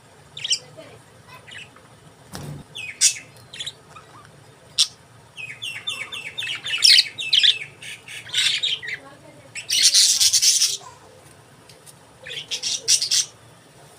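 Budgerigars chirping and squawking in short, irregular bursts, with a quick run of chirps about halfway through and a harsh, noisy screech lasting about a second near the ten-second mark.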